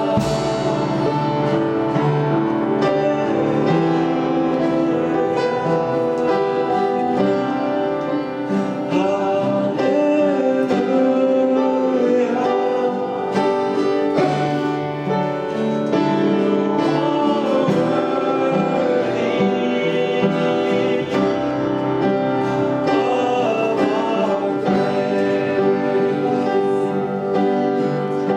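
Church worship music: instruments playing with singing, steady and continuous.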